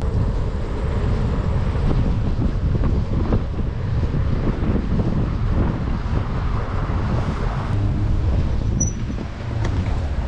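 Wind buffeting the microphone of a camera on a moving bicycle: a loud, steady rumble.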